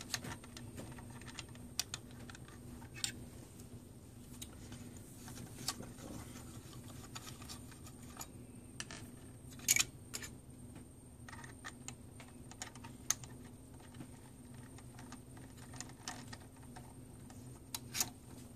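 Scattered small plastic-and-metal clicks and knocks of the filter-cube slider on a Nikon Eclipse TS100 inverted microscope, pushed in and pulled out by hand, with a sharper knock about ten seconds in and a quick run of clicks near the end. The slider mechanism is not working as it should, and the specialist thinks it needs cleaning and lubrication.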